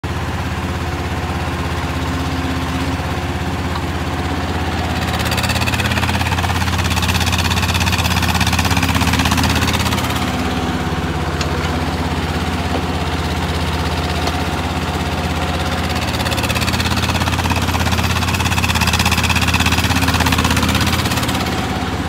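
Tata Hitachi Zaxis mini excavator's diesel engine running steadily as the machine digs soil, the engine note getting louder and harsher twice for several seconds, about five and sixteen seconds in, as it works harder under load.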